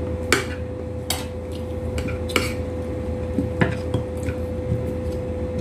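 Spoons and forks clinking against plates while eating, in scattered sharp clinks about a second apart, over a steady hum.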